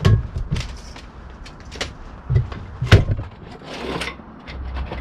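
A series of irregular knocks and clunks, as of tools and metal being handled and struck while working on car bodywork, with a short scraping rush near the end.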